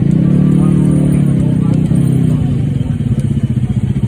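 An engine running with a fast, even throb. Over the first two seconds or so, a steady droning tone sits on top of it and is the loudest part.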